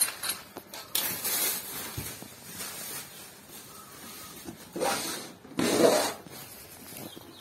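Clear plastic packaging bags rustling and crinkling in short bursts as small bicycle parts are handled, about a second in and again twice around five to six seconds.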